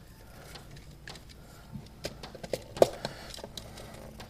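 Light clicks and taps of stiff electrical wires being handled and pushed into the terminals of a USB wall outlet, with one sharper click about three seconds in.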